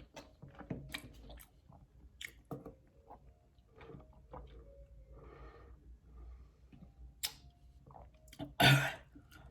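Close-miked chewing of a baleada, a soft flour tortilla filled with beans, avocado and steak: quiet wet lip smacks and mouth clicks. A louder breathy sound comes near the end.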